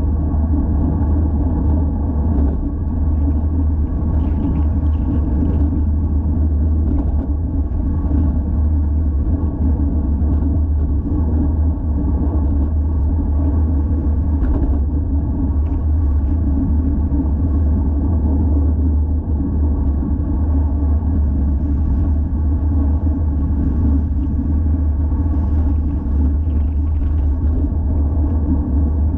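Steady low rumble of wind buffeting the microphone of a GoPro Hero 5 Session, with road noise from a Trek Emonda ALR 5 road bike riding along.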